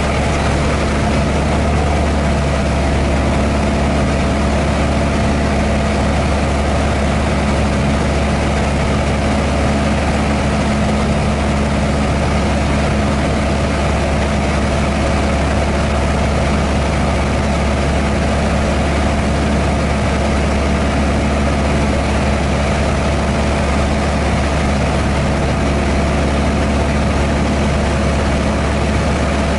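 Piston engine and propeller of a light single-engine airplane running steadily in flight, a constant drone heard from inside the cockpit.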